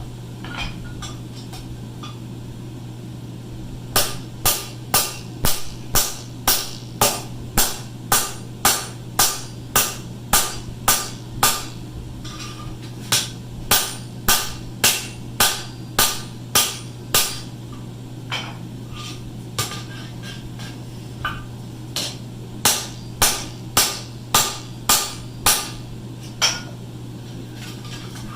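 Hand hammer striking steel in runs of ringing blows, about two a second, in three bursts with short pauses and a few single knocks between, as bars of a forged barbecue rack are driven tight into place. A steady low hum runs underneath.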